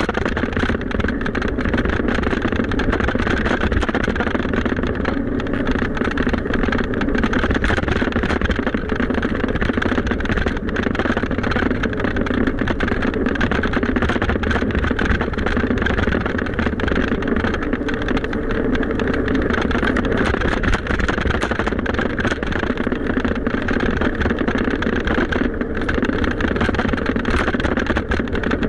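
Wind rushing over the microphone with a steady deep rumble, as heard while riding a bicycle.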